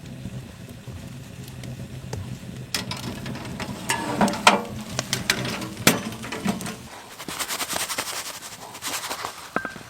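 Cooking at a wood stove: sharp knocks and clicks with short scrapes from a pan and utensils, then a dense crackle from about seven seconds in, like fat sizzling in the pan.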